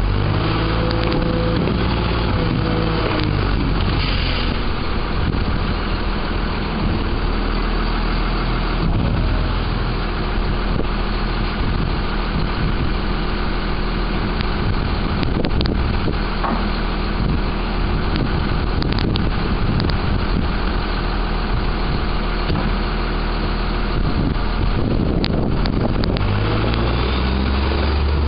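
Sterling Condor garbage truck with a McNeilus body, its engine running steadily while the lifting arm and packing hydraulics work. A few pitch-shifting whines sound early on as the arm dumps the cart, and there are scattered sharp pops. Near the end the engine grows louder as the truck pulls ahead.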